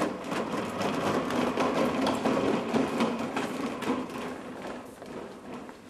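Cleaning trolley rattling as it is pushed across a tiled floor, a dense run of small clicks that fades as it moves away.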